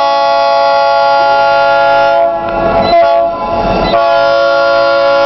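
Diesel locomotive's multi-chime air horn sounding a long, loud blast as a steady chord, with a rougher patch partway through. The uploader thinks it sounds like a Leslie S3L three-chime horn.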